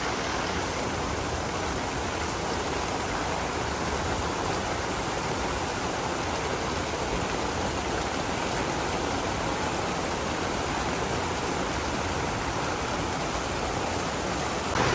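Steady heavy rain falling during a thunderstorm, heard from under a day bed's canopy roof.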